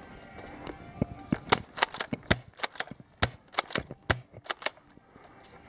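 Airsoft guns firing: a fast, uneven string of sharp snapping shots lasting about four seconds, starting about a second in.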